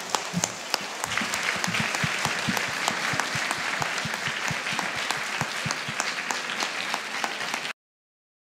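Audience applauding: scattered claps at first, filling in about a second in, then cut off suddenly near the end.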